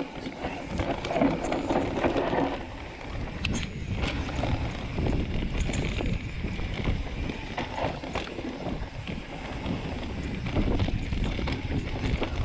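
2018 Rocky Mountain Altitude C50 mountain bike riding down a dirt singletrack: tyres rolling over dirt with knocks and rattles from the bike, and wind rushing over the microphone. It gets louder as the descent starts.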